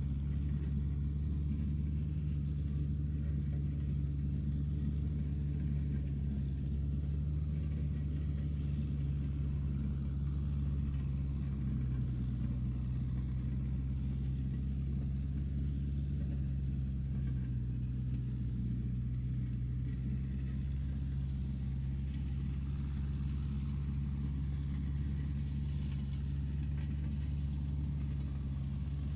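A steady low, engine-like hum that holds level without breaks, with a faint thin high whine above it.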